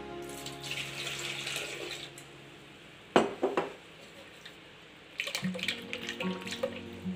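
Wet, splashing liquid sounds of ground apple pulp and juice being poured from a mixer-grinder jar onto a straining cloth, with a sharp knock a little after three seconds. Background music fades out at the start and comes back about five seconds in.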